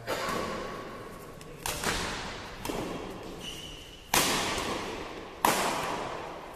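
Badminton rackets striking the shuttlecock in a doubles rally: six sharp hits at irregular intervals of about a second, each trailing off in a long echo from the hall. The two loudest hits come about four and five and a half seconds in.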